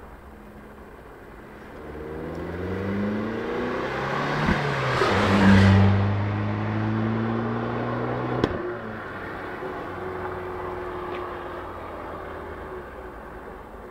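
Fiat 500 Abarth's turbocharged 1.4-litre four-cylinder engine on its stock exhaust, running low, then revving up over about three seconds to a loud peak. It holds there, then drops back with a sharp click about eight and a half seconds in.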